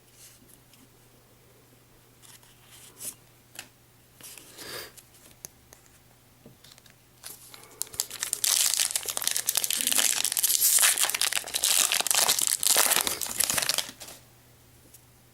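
Foil wrapper of a Pokémon booster pack being handled and torn open: a few light rustles and clicks, then about six seconds of loud, continuous crinkling and tearing starting about halfway through.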